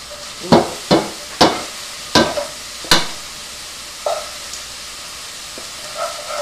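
An egg tapped about five times against the rim of a plastic mixing bowl to crack it: sharp knocks in the first three seconds. Underneath runs the steady sizzle of sausage frying in a pan.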